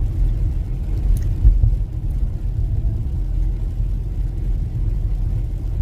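Steady low road rumble inside a moving car's cabin, with a light knock about a second and a half in.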